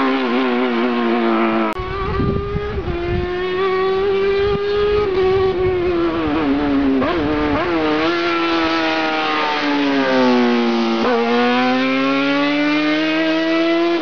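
Rally car with a Yamaha 1000 engine running at high revs as it drives up toward the listener. The pitch climbs and falls with the throttle and gear changes, with a sharp dip and fresh climb about 11 seconds in.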